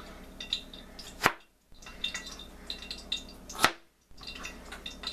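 Chef's knife chopping a carrot on a plastic cutting board: two sharp knocks, about a second in and again near four seconds in, over faint crackling of oil heating in a pan.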